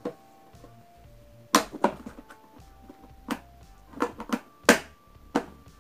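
Hard plastic knocks and clacks, about eight in all, from the garment steamer's detachable water tank being handled and fitted onto its plastic base.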